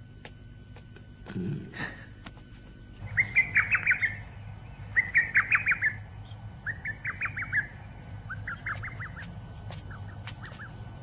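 A bird calling: five trills of rapid chirps, each about a second long and roughly two seconds apart, the last ones fainter, over a steady low hum.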